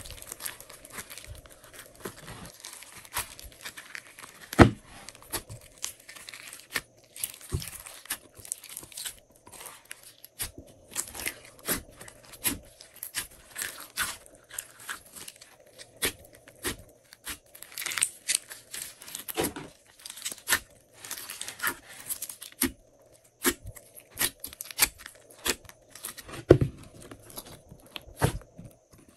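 Slime being squeezed and worked by hand, giving a dense run of irregular sticky crackles, pops and snaps, with plastic crinkling. A faint steady hum runs underneath.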